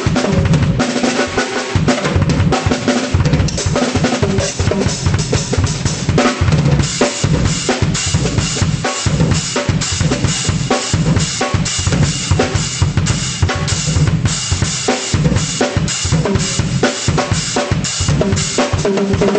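Drum kit played without a break, a dense stream of drum and cymbal strikes, several a second.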